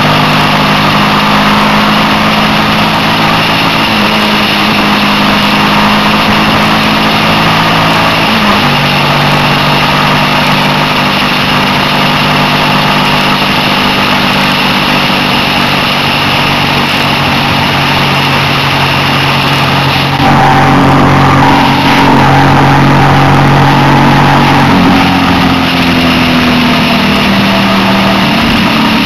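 Suzuki SV650's V-twin engine running at road speed with wind rushing over the bike, heard from on board. The engine note steps to a new pitch several times with gear changes, and the wind and engine grow louder for a few seconds about twenty seconds in.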